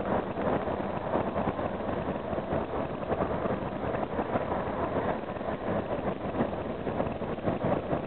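Karosa B741 articulated city bus driving at speed, heard from inside at the front: a steady mix of engine, tyre and road noise with many small rattles.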